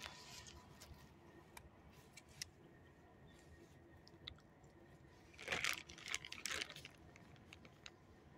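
A dog crunching a hard treat: a few faint clicks, then a short run of louder crunches about five and a half seconds in that lasts about a second.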